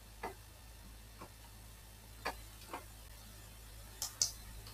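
About six faint, irregularly spaced clicks of computer controls, over a low steady hum.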